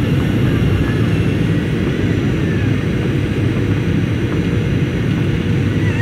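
Passenger airliner landing in a strong wind: a steady, heavy rumble with no breaks.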